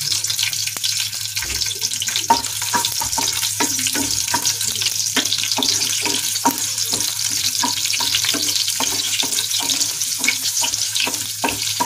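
Garlic cloves sizzling and crackling in hot oil in a nonstick frying pan. From a couple of seconds in, a wooden spatula stirs them with quick, repeated strokes against the pan.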